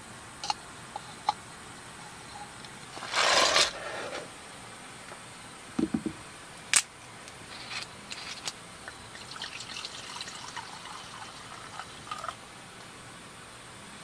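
Tableware being handled at a meal: light clicks and taps, a short rushing noise about three seconds in, and a sharp tap just before seven seconds.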